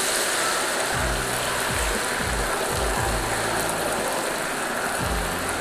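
Used frying oil in a wok sizzling and bubbling hard, a steady hiss, as a potato-starch and water slurry is poured in and its water boils off. Background music with a bass line plays underneath.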